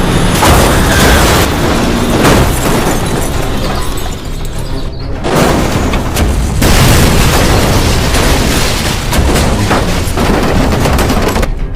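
A run of loud booming crash and explosion sound effects, several sudden hits over a few seconds, laid over music.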